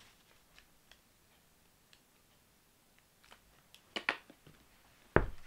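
Plastic Heinz ketchup squeeze bottle being handled: a few faint clicks and ticks, a short sharp noise about four seconds in, then a dull thump near the end as the bottle is set down on the table.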